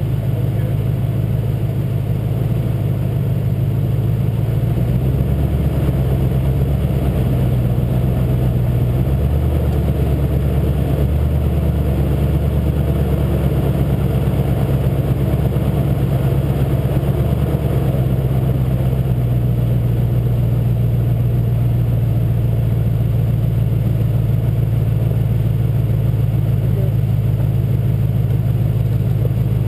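Pickup truck engine running at low speed on a rough gravel road, heard from a camera mounted on the truck's front. It is a steady low hum that shifts in pitch a few times.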